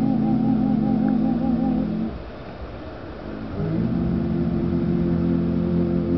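Male klapa group singing in close harmony, holding a long chord with vibrato that breaks off about two seconds in. After a short pause they take up and hold a new chord.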